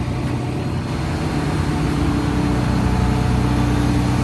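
Engine idling steadily: a constant low hum with a steady higher tone above it.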